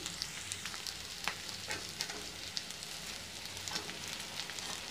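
Chopped onion and capsicum sizzling in hot oil in a kadai, a steady frying hiss, with scattered clicks and scrapes of a steel spoon stirring in the pan.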